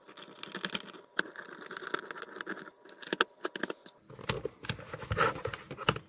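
Plastic housing of a cheap robot vacuum cleaner being reassembled by hand and screwed up with a small screwdriver: a run of light plastic clicks and taps, one sharper click about a second in. In the last two seconds there is heavier handling and knocking of the shell.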